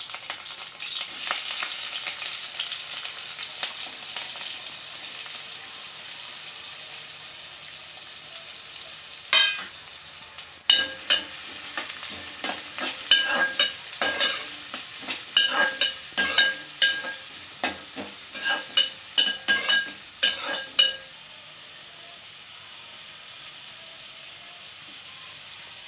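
Green chillies and whole spices sizzling in hot oil in an aluminium kadai. About nine seconds in, chopped onions go in and a metal spoon stirs them, clinking and ringing against the pot over and over for about ten seconds. After that a quieter, steady sizzle.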